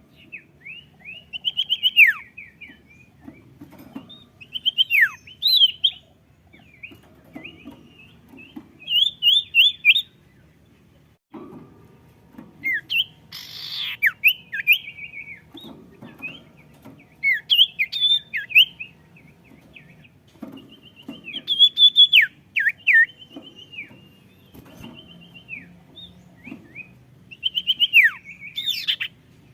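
Sirtu, a small songbird, singing in short, fast bursts of high chirping notes every one to three seconds.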